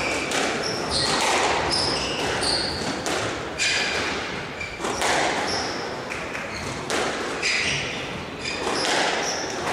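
Squash rally: the ball cracks off rackets and the walls about once a second, each hit ringing briefly in the hall, with short high squeaks from the players' shoes on the wooden court floor between hits.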